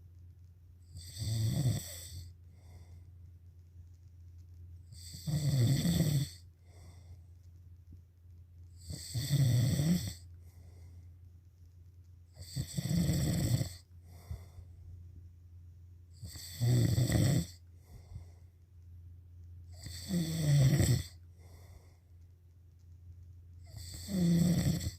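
Snoring in a slow, regular rhythm: seven loud, rasping snores about a second long each, one every three and a half to four seconds, over a steady low hum.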